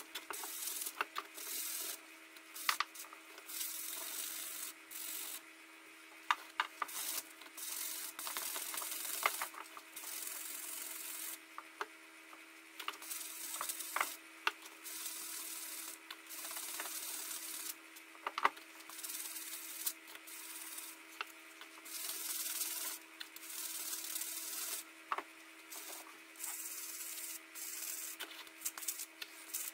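Sanding block rubbed by hand back and forth over the steel head of a blacksmith's hammer-chisel. The sanding comes in stretches of a second or two with short pauses between them, with occasional light clicks.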